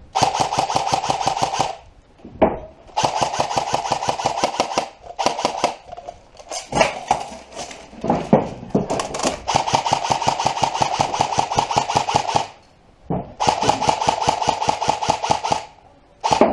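Airsoft electric rifle (AEG) firing on full auto: four long bursts of about two seconds each, with a few short bursts between, each a fast, even rattle of shots over the gearbox's whir.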